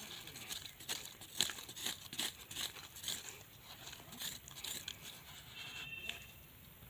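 Gloved hands pressing and scraping dry soil, twigs and dead leaves around a small seedling: a run of short scratchy rustles and crackles that thins out about five seconds in.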